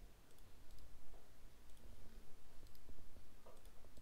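Computer mouse clicking several times, about once a second, some as quick press-and-release pairs, over a low steady hum.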